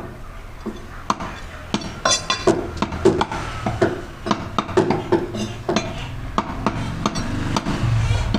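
A steel meat cleaver chopping mutton head pieces on a wooden chopping block: a run of irregular sharp knocks, several a second, some with a short clinking ring.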